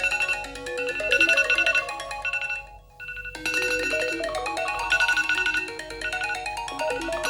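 iPhone alarm tone: a melody of quick, stepping electronic notes that breaks off for a moment about three seconds in, then starts over.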